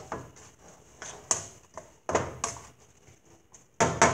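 A spatula knocking and scraping against a stir-fry pan while vegetables in sauce are stirred, in irregular clicks with a louder cluster of knocks near the end.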